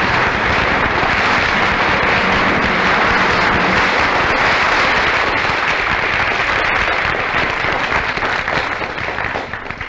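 Studio audience applauding, steady, then dying away near the end.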